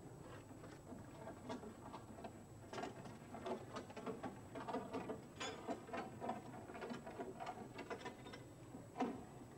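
A padlock being picked with small metal tools: irregular metallic clicking and rattling, with a louder click near the end.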